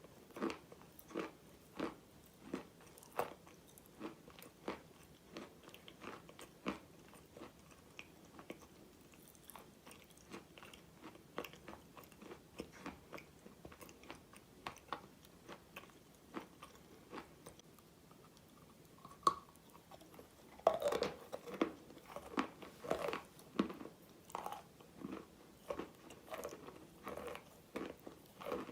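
Close-miked biting and chewing of crunchy chalk-type mineral pieces: sharp crunches, about one to two a second, with a denser, louder run of crunching about three-quarters of the way through.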